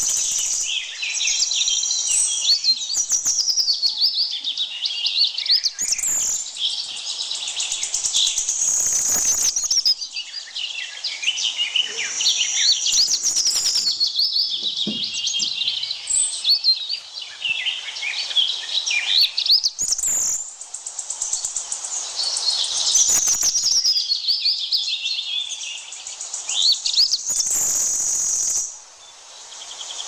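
Forest birds chirping and calling continuously in many short, quick notes, over a high steady insect buzz that swells and fades.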